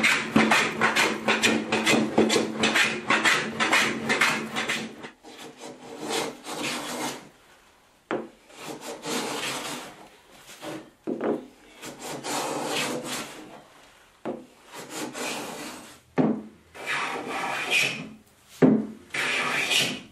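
Hand tools cutting a walnut panel: quick, evenly repeated saw strokes for about the first five seconds, then slower separate strokes of a smoothing plane shaving across the wood.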